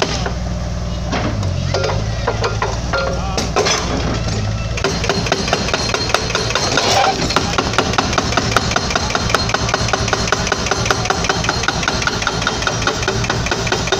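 Excavator-mounted hydraulic breaker hammering a concrete wall in rapid, even blows over the excavator's running diesel engine. The hammering mostly pauses for the first few seconds and starts up again about five seconds in.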